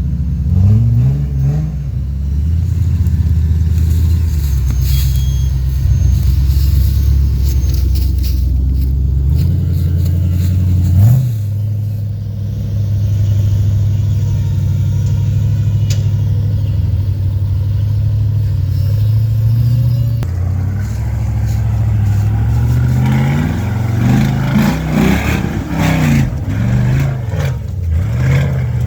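Toyota 4Runner's 22RE four-cylinder engine running under load, its pitch rising and falling as the revs change. It runs steadier through the middle, with several quick rises and drops near the end.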